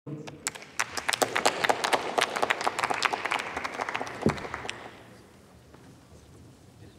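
Applause from a seated parliamentary assembly, many separate hand claps rather than a solid roar, dying away about five seconds in.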